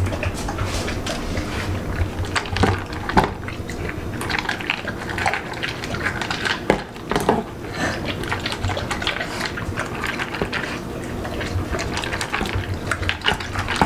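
A dog eating water-soaked kibble out of a plastic slow feeder bowl: wet slurping and lapping, broken by many quick clicks as it works the food out from between the bowl's ridges.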